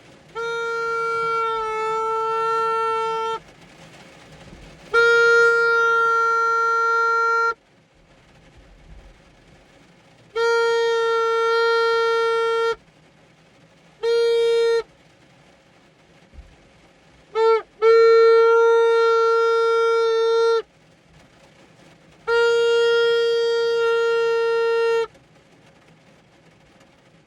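A handheld horn sounding in steady, single-pitched, reedy blasts: five long blasts of about three seconds each and one short one, with two quick toots just before the fifth long blast.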